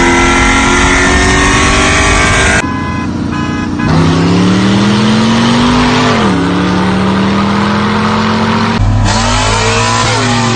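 Car engine revving, its pitch climbing and then falling back, in several loud stretches joined by abrupt cuts.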